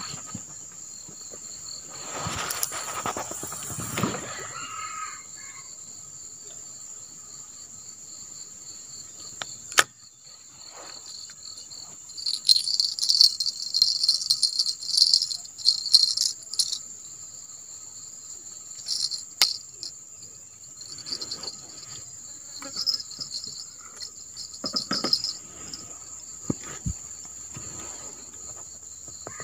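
Insects chirring steadily at a high pitch, with a small twin fishing-rod bell jingling in bursts for several seconds around the middle. There are rustles and knocks of handling near the start and toward the end.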